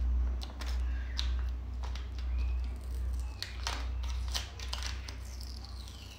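Paper label being peeled and scratched off a plastic jar by hand, its glue softened by hot water inside the jar: soft tearing and fingernail scraping, thickest a little past halfway, over a steady low hum.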